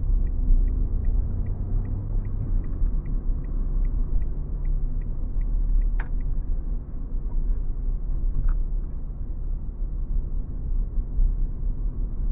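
A car's turn indicator ticking evenly, about four ticks a second, over the low rumble of road and engine noise inside the cabin. The ticking stops about halfway through as the left turn is completed, and a sharp click follows.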